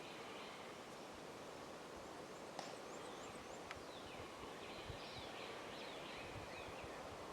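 Quiet outdoor woodland background with songbirds singing faintly over a steady hiss, in short repeated chirps and downward-slurred notes. There are a couple of small sharp clicks, about two and a half seconds in and again about a second later.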